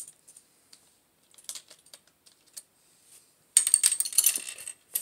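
Foil blind-bag toy wrapper being handled, with small scattered clicks and rustles, then crinkling loudly and densely from about three and a half seconds in.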